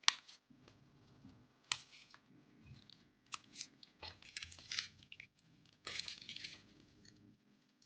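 Hands handling PC parts: two sharp clicks, one at the very start and one under two seconds in, then short bursts of scraping and crinkling.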